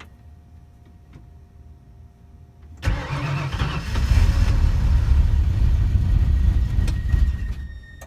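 Cold-soaked 351 Windsor V8 under Holley Sniper throttle-body fuel injection starting at −20 °C without a block heater: it fires about three seconds in and runs roughly and loudly for a few seconds, then dies away near the end without keeping running.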